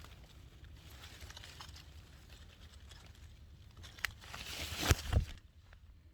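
Faint outdoor background, then a rustle that builds about four seconds in and ends in two dull thumps close together.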